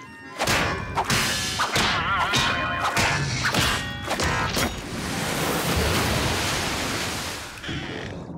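Cartoon sound effects of a giant fish thrashing underwater: a quick run of whacks and swishes, then a long rushing noise that fades near the end.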